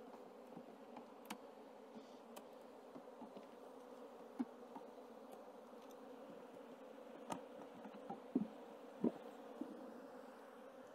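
Faint steady hum of a honeybee colony in the opened hive, with a few sharp clicks and cracks of a metal hive tool prying the wooden frames loose, the loudest grouped about seven to nine seconds in.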